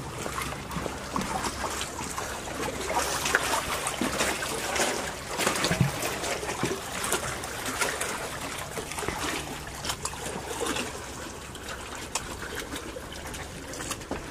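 Water lapping and trickling against moored boat hulls and a floating dock, with scattered small clicks and knocks.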